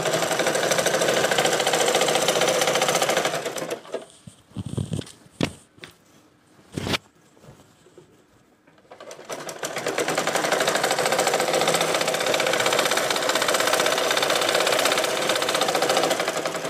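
Domestic sewing machine running steadily as it stitches a seam through cloth. It stops about four seconds in, with a few clicks during the pause, then runs again for about seven seconds and winds down near the end.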